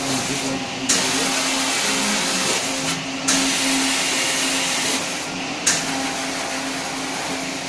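Rotary bottle washing machine running through its inner wash: water jets hiss steadily over a constant motor hum, cutting out briefly about every two and a half seconds and restarting each time with a sharp click.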